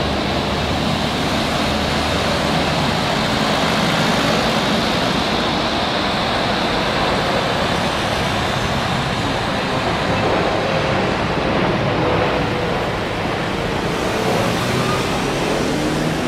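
Boeing 777-300ER's GE90 turbofan engines on final approach: a steady, even rush of jet noise as the airliner flies in low toward touchdown.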